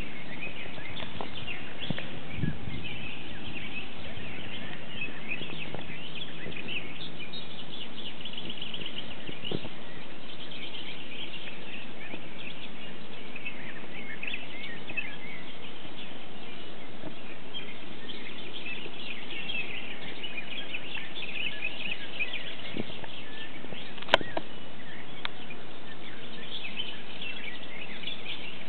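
Several birds chirping and singing over a steady background hiss, with a single sharp click about 24 seconds in.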